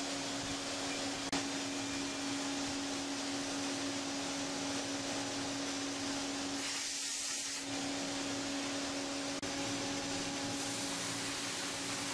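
CNC machining centre cutting a mold core with a 1 mm ball end mill: a steady hiss with a constant hum-like tone from the spindle and cut. There is a sharp click about a second in and a brief change in the sound about seven seconds in.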